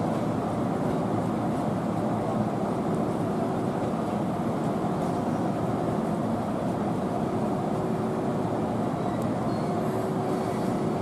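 Steady running noise of electric trains at a station platform, as an orange-and-green-striped JR commuter electric multiple unit rolls slowly in on the track beside a standing electric locomotive, with a faint steady hum under it.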